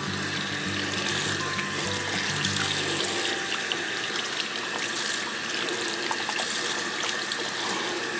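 Water running steadily from a bathroom tap into a sink as hands are rubbed and rinsed under the stream.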